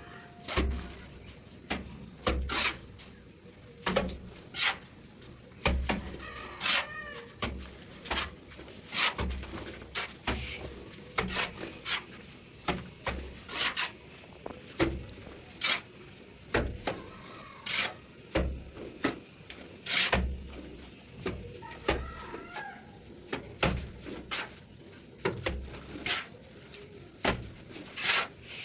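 Repeated sharp slaps and knocks, about one or two a second, of a trowel working cement-sand mortar onto a brick wall. Faint bird calls come in twice between them.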